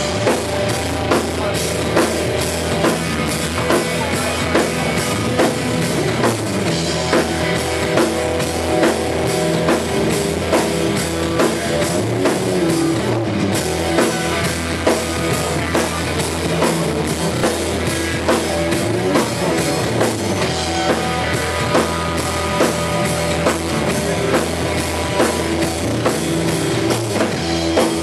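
Live rock band playing with electric guitars and a drum kit keeping a steady beat, in a slightly distorted recording.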